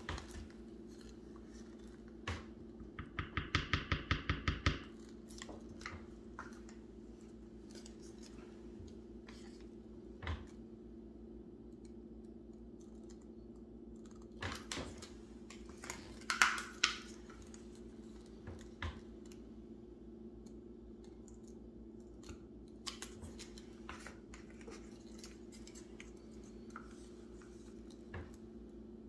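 Light clicks, taps and scrapes of paint cups and tools being handled while acrylic pour paint is mixed and set up again. A quick run of clicks lasts about two seconds near the start, and a few louder scrapes come around the middle, over a steady low hum.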